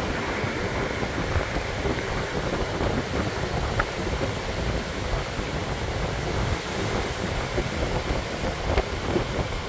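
Sea surf breaking and washing ashore, a steady rushing noise, with wind rumbling on the microphone.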